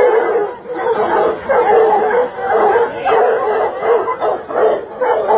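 A dog barking rapidly and repeatedly, about two barks a second.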